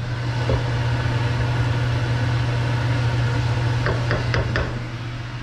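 Steady low hum of a kitchen fan running, with a few light clicks about four seconds in.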